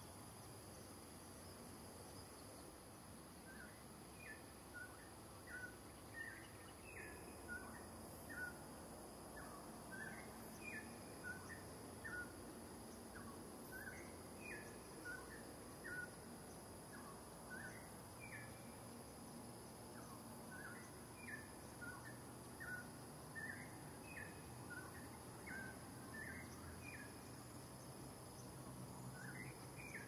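Faint outdoor ambience: a steady high insect drone, with a run of short, faint chirping calls, one or two a second, starting a few seconds in.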